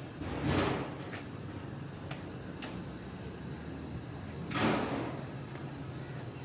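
Two short scraping swishes about four seconds apart, with a few faint clicks between them, over a steady low hum.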